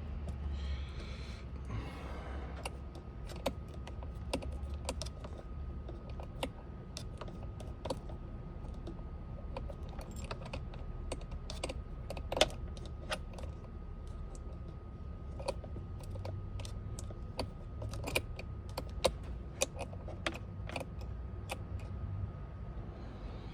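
Irregular small clicks and taps of hands working a steering-wheel airbag module loose from its clips, over a steady low hum.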